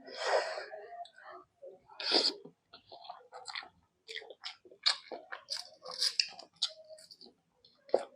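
Close-miked chewing and lip-smacking as a person eats, with irregular wet mouth clicks and a few louder crunchy bites, the loudest about two seconds in.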